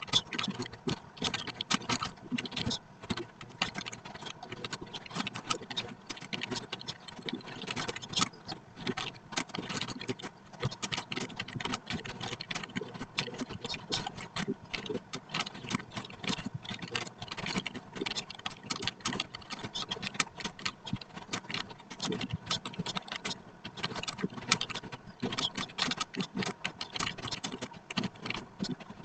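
Computer keyboard being typed on continuously, a rapid irregular stream of key clicks.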